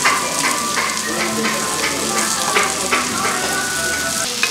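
Food sizzling on a tabletop grill plate, with frequent short clinks and scrapes of utensils.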